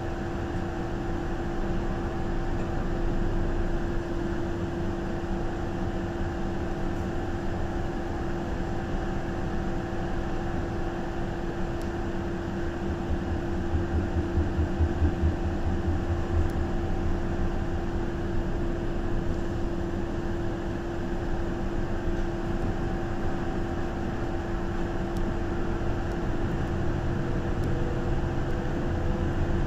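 MTR Disneyland Resort Line M-train running along the track, heard from inside the leading car: a steady rumble of wheels on rail under a constant hum. About halfway through the low rumble grows louder and pulses for a few seconds.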